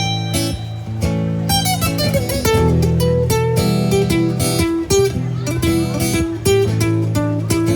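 Acoustic guitar music without singing: an instrumental passage of picked and strummed notes over a steady bass line.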